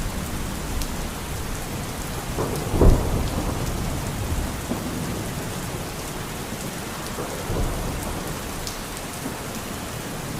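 Heavy rain with hail pattering and clicking on surfaces during a thunderstorm, with a sudden loud thunder crack about three seconds in and a smaller rumble of thunder near 7.5 seconds.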